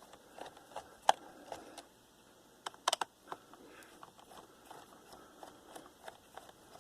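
Light, scattered clicks and ticks of a small screwdriver working the screws that hold a laptop's CPU heat sink, with a sharper click about a second in and a quick double click near three seconds.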